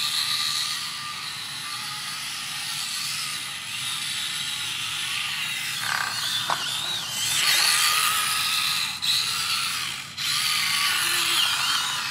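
Axial SCX24 1/24-scale RC crawler's small electric motor and geared drivetrain whining as it crawls, the pitch wavering up and down with the throttle and getting louder about two-thirds of the way in.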